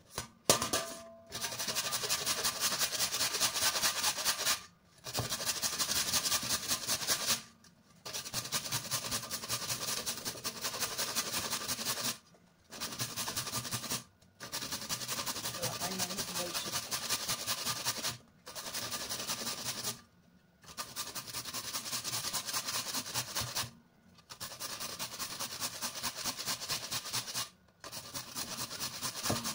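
Carrot being grated on a stainless-steel box grater over a steel bowl: quick rasping strokes in runs of two to four seconds, with short pauses between runs.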